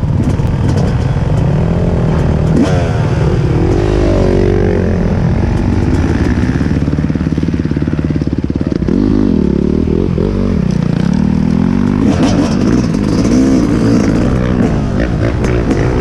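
Dirt bike engines running close by, revved up and down several times so the pitch rises and falls, as riders move off across rough grass.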